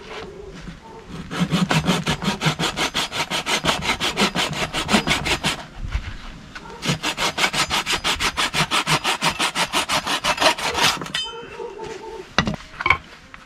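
Small hand saw cutting through a hardwood stick in quick, even back-and-forth strokes, several a second, in two long runs with a short pause between them. Two sharp knocks near the end.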